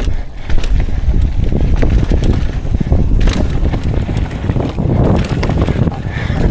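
Wind buffeting the microphone over the rumble and clatter of mountain bike tyres rolling over rocky trail, with frequent sharp knocks from the bike bouncing on rock.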